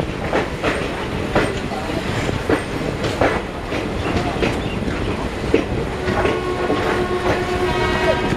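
Passenger coach wheels of a moving train rumbling and clattering over rail joints, heard through an open coach door, with sharp clacks every half second or so. About six seconds in a long steady pitched tone comes in and holds.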